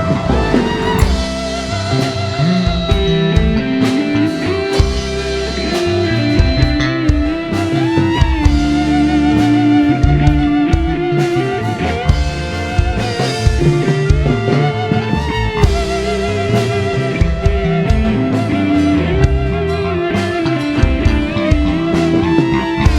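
Loud instrumental band music through a large PA sound system: a held, wavering melodic lead line over drum hits and bass.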